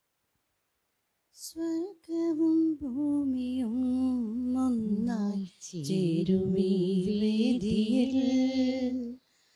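A woman singing a Malayalam Mass hymn, coming in about a second and a half in after a silence, with a short break midway.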